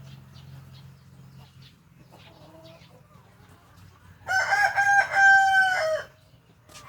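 A rooster crows once, a single drawn-out call of under two seconds starting about four seconds in, over faint scattered clicks.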